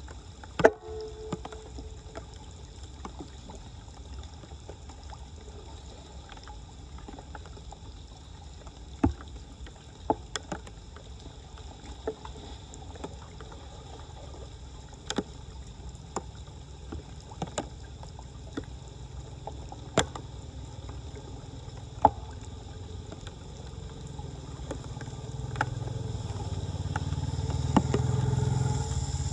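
Floodwater running steadily, with scattered sharp knocks and one ringing metallic clank near the start. A low engine rumble builds over the last few seconds.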